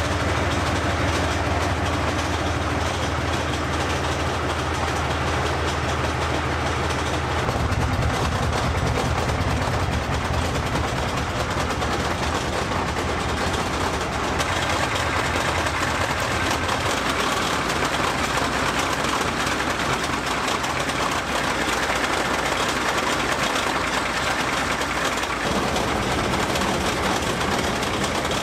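Type 69 tank's 38.8-litre V12 diesel running after a start, its sound shifting in tone a couple of times. It runs unevenly: it seems a few cylinders are not firing, which the crew puts down to low compression or the fuel injectors or injection pump.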